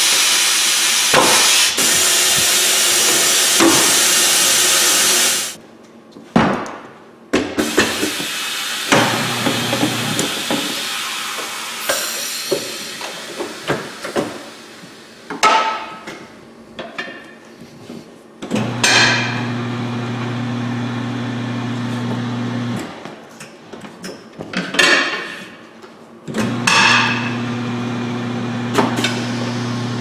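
Air hissing loudly out of a tire as it is deflated, cutting off suddenly about five seconds in. Then a tire changer's motor hums steadily in three stretches of a few seconds each while the tire is worked off the alloy rim, with sharp metal clanks and knocks of the tire tools and the wheel between.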